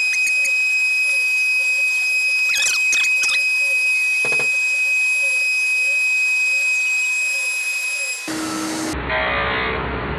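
CNC router spindle running and cutting plywood with a steady high-pitched whine, a few light clicks about three seconds in. Near the end the sound changes abruptly to a duller, coarser machine noise.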